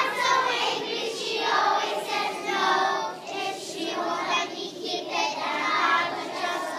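A choir of kindergarten children singing together.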